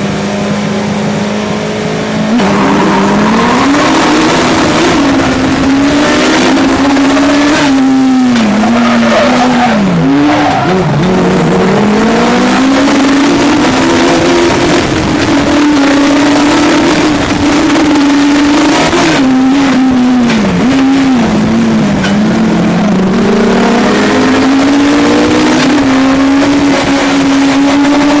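A Legends race car's Yamaha motorcycle engine, heard from inside the car. It holds steady revs at first, then about two seconds in gets suddenly louder as the car launches from the start. From there it climbs in pitch again and again through the gears, with sharp drops at the shifts and lifts.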